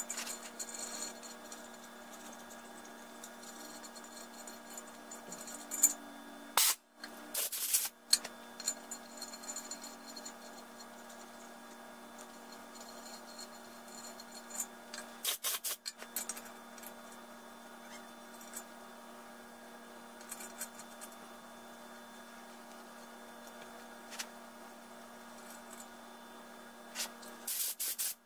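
Hands and metal parts scraping and rubbing inside a cast-iron 7.3 Powerstroke diesel engine block, with three brief loud knocks spread through, over a steady hum.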